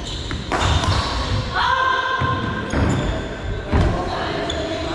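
Badminton being played on an indoor court: sharp knocks of racket hitting shuttlecock and players' footfalls, with the loudest hits about half a second in and near the four-second mark.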